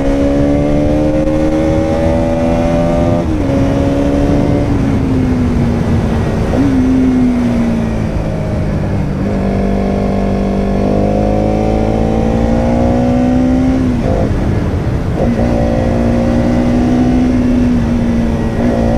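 Bajaj Pulsar NS200's single-cylinder engine running under way, its pitch stepping and sliding several times as throttle and gears change. Wind rush on the microphone underneath.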